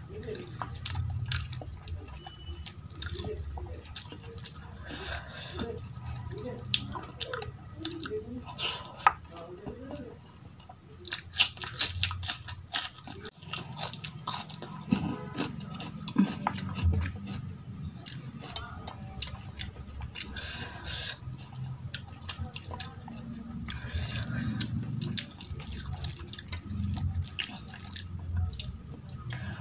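Wet squelching and clicking of a hand mashing rice and dal on a steel plate, alternating with smacking chewing sounds.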